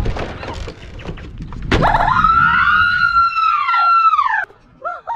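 Scuffling clatter, then two women shrieking in fright together for nearly three seconds, one holding a high steady pitch while the other arches up and down, both cutting off abruptly.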